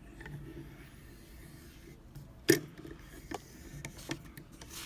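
Faint handling of a mortise lock cylinder and its key: light rubbing with one sharp metallic click about two and a half seconds in, then a few softer clicks.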